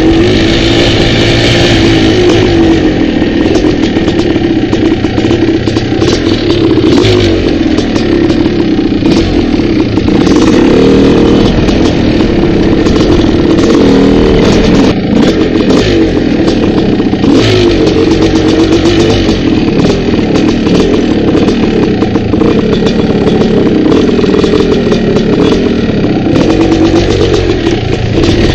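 Dirt bike engine running hard on a trail ride, its revs rising and falling as the rider throttles on and off. Frequent short knocks and rattles come from the bike over the rough, rocky track.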